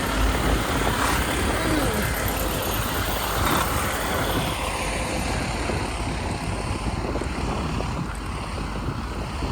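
Fire department rescue truck driving past, its engine and road noise steady at first, then fading as it moves away from about halfway through.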